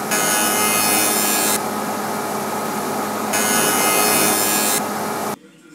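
Spindle moulder (shaper) running with a steady hum, its cutter biting into the hardwood end-grain board twice, each cut about a second and a half long and louder and hissier than the idle run. The sound stops abruptly near the end.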